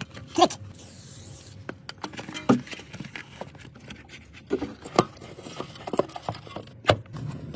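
Scattered clicks, knocks and scrapes of parts and tools being handled while a rear air strut is fitted, with a brief high hiss about a second in.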